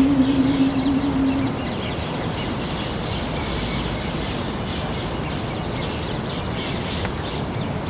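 A long, steady held note stops about a second and a half in, leaving outdoor ambience with birds chirping.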